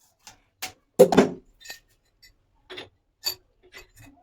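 Shower head fittings being handled and fitted: a string of sharp, irregular clicks and clinks of hard parts knocking together, the loudest cluster about a second in.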